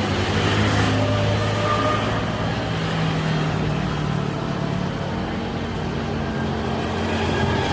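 Airbus A350-900 airliner's Rolls-Royce Trent XWB turbofans running on landing approach: a steady low drone with a few faint, held higher tones.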